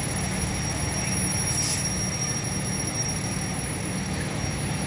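Fire truck engine running steadily with a constant low hum. A brief hiss about a second and a half in.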